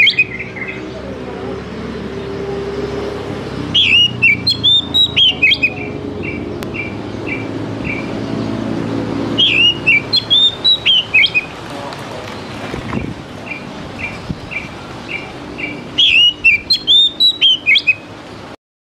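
Oriental magpie-robin singing: bursts of quick, varied whistled phrases about every six seconds, some followed by a string of short, evenly spaced repeated notes at about three a second.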